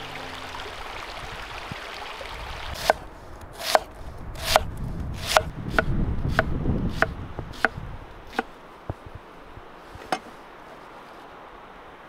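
Running water of a small stream at first, then a large knife chopping red onion on a wooden stump: about ten sharp knocks, one or two a second, with the last ones more spread out.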